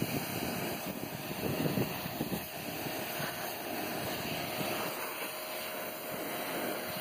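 High-pressure washer jet spraying water onto clay roof tiles: a continuous rushing hiss, rougher and surging for the first two seconds or so, then steadier, with a faint steady hum underneath.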